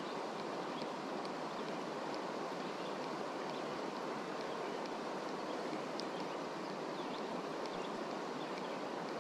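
Steady rush of a flooded creek's flowing water.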